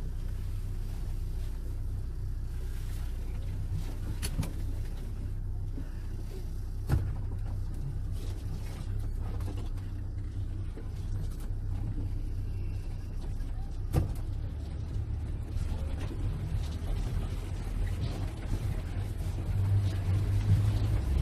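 A safari 4x4's engine running under load, heard as a steady low rumble from inside the cabin as it drives through a shallow river, with two sharp knocks from the vehicle's body. The engine grows louder near the end.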